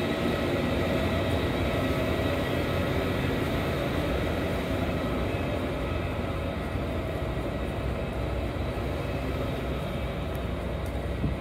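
A Gakunan Railway electric train running on the line past the station, a steady rumble with a faint steady whine, and a short knock near the end.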